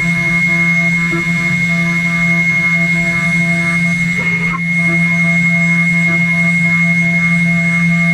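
CNC router running, its spindle giving a steady high-pitched whine over a lower hum, with a brief rougher patch of cutting noise about four seconds in.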